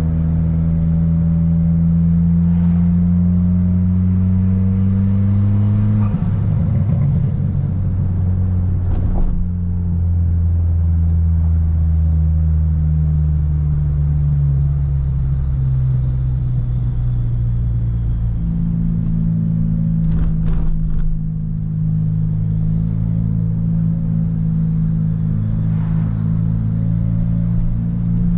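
Car engine and road noise heard from inside the cabin while driving. The engine note climbs for the first few seconds and then drops, as with a gear shift, sinks slowly, and rises again near the two-thirds mark. A couple of short clicks are heard along the way.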